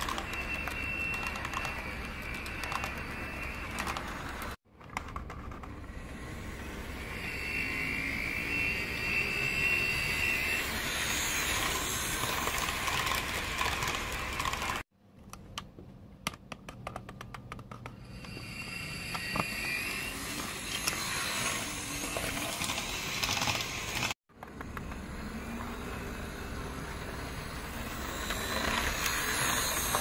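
HO scale model train wheels clicking over a track diamond crossing as a train rolls through, a steady clatter of clicks under the running train's hum. The sound cuts out briefly three times between takes, and at one point the clicks come more slowly and singly as a locomotive approaches the crossing.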